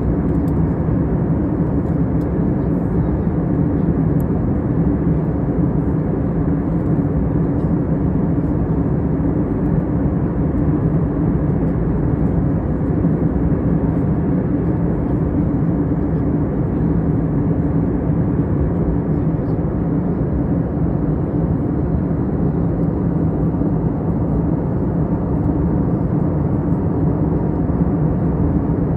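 Steady cabin noise of a jet airliner in flight: an even drone of engines and rushing air with a constant low hum.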